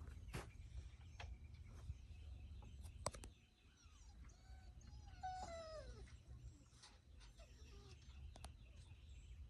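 Near silence in the woods, with scattered faint clicks and, about five seconds in, a few faint calls that fall in pitch.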